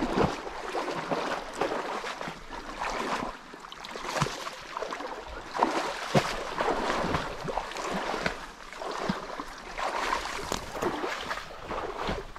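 Irregular splashing and sloshing of shallow river water as a hooked king salmon is played in close to a landing net.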